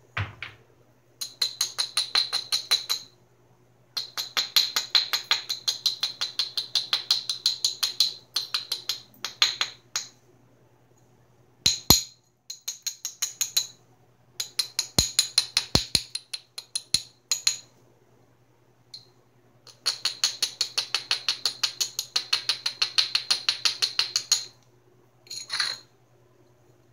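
Georgetown flint biface edge being rubbed with an abrader in quick back-and-forth strokes, about eight a second, in runs of a few seconds: grinding the edge to prepare striking platforms before flaking. A few single sharp clicks of stone on stone fall around the middle.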